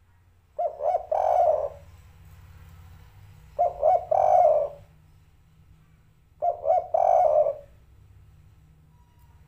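Caged spotted dove cooing its 'derkuku' song three times, about three seconds apart. Each phrase is two short notes followed by a longer coo.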